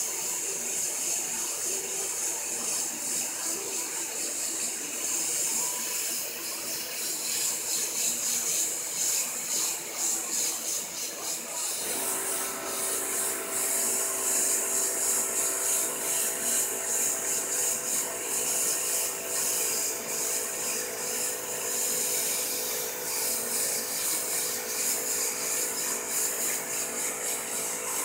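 Gravity-feed airbrush spraying white paint onto a shirt: a steady high hiss of air and paint that flickers as the trigger is worked. About twelve seconds in, a steady mechanical hum starts up under the hiss and keeps running.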